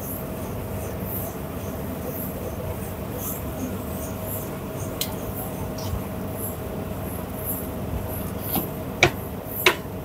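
Siemens condenser tumble dryer running with its side cover off: a steady mechanical rumble with a faint steady hum, its drain pump working normally. A few sharp clicks, the loudest two near the end.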